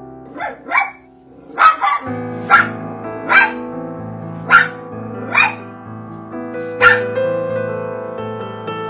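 A dog barking, about nine short sharp barks roughly a second apart, the last about seven seconds in, over soft piano music.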